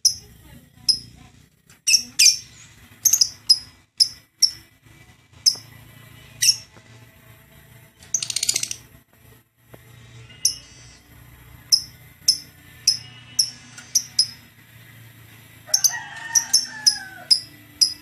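Caged lovebird giving sharp, shrill chirps, singly and in quick pairs at irregular intervals, with a short rattling chatter about halfway through. A lower, falling call sounds once near the end.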